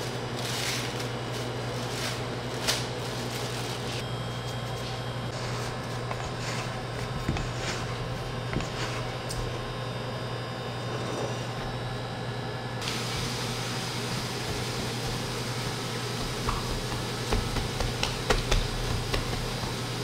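Steady low hum of café machinery, with scattered light clicks and knocks, several close together near the end.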